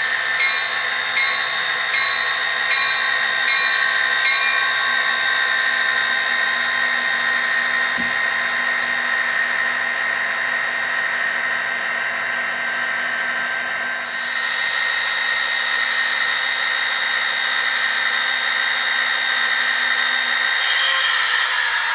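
HO-scale model freight train running on track, a steady mechanical whine of motors, gears and wheels. For the first few seconds there is also a regular tick about twice a second.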